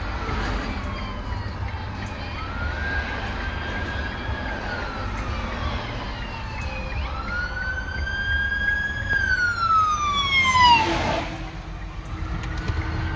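Fire truck siren wailing, rising and falling slowly, heard from inside a car over the car's low road rumble. It grows louder and its pitch drops sharply about ten and a half seconds in as the truck passes close by.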